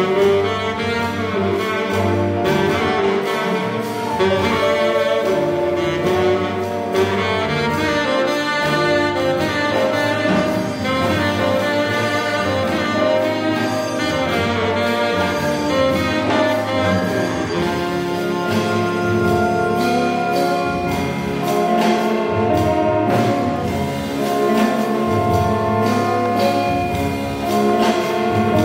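Baritone saxophone playing a melody over a jazz big band with brass and reeds; the saxophone drops out before the end and the band plays on.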